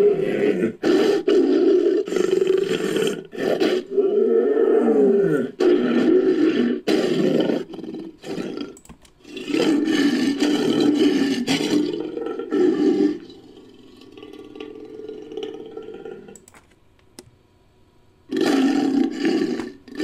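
Homotherium sound effect made from big-cat roars: several long, loud roars in a row, a quieter stretch past the middle, a short pause, and another roar near the end.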